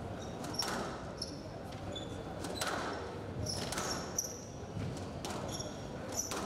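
Squash rally: the ball cracking off rackets and the court walls about once a second, with players' shoes squeaking sharply on the court floor in between.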